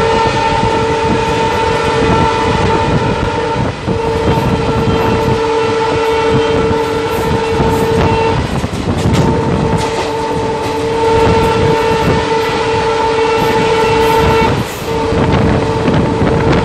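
Train horn sounding in long, nearly continuous blasts with short breaks, over the rumble and clatter of the coaches' wheels on the rails, heard from the open door of a coach of an express running through a station without stopping.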